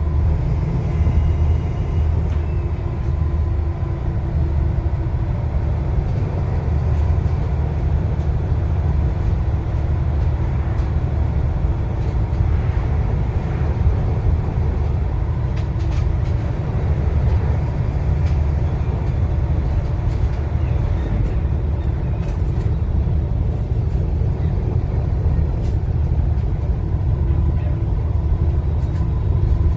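Volvo B7TL bus's six-cylinder turbodiesel engine running steadily with a low rumble, a faint turbo whistle sounding over it near the start and again near the end.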